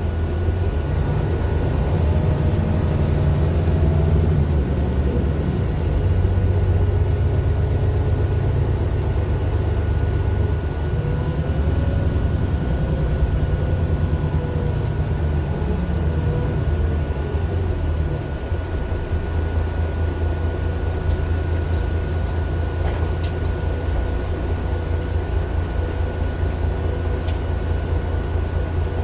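Inside a Mercedes-Benz Citaro LE city bus: its Daimler OM 457 hLA diesel and ZF automatic gearbox running as the bus drives, a deep steady rumble with a faint steady high whine. The engine is fuller for the first two-thirds, with faint rising whines, then settles into a steadier, slightly lower run.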